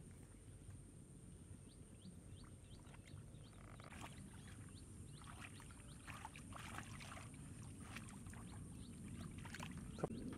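Hands groping and sloshing in shallow muddy water, a run of small irregular splashes and drips that grows busier after a few seconds, over a faint low rumble.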